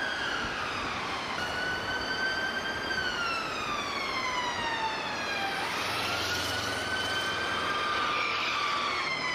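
UK ambulance siren on a slow wail, its pitch sweeping up and down every few seconds, over street traffic noise.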